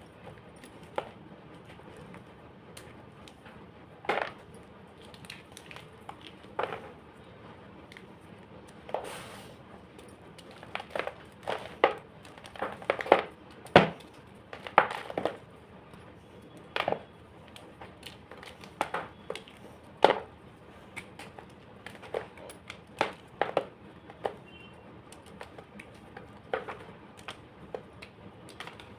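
Homemade gym chalk being crunched and crushed: irregular sharp crunches and cracks, sparse at first, coming thickest in the middle, then spacing out again.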